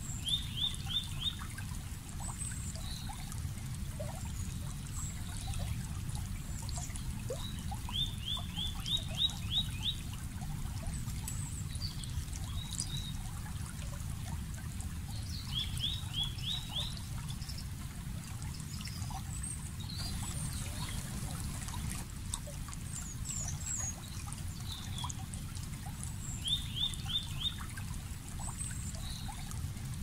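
Water trickling steadily while a bird repeats a quick run of four to six rising notes four times, about every eight seconds. Fainter high chirps from other birds come in between.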